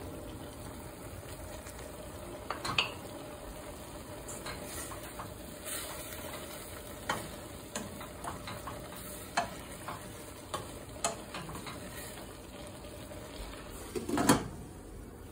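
Diced chicken sizzling in a stainless steel frying pan as it is stirred, with scattered clicks and scrapes of the utensil against the pan. Near the end a glass lid is set down on the pan with a clatter, the loudest sound.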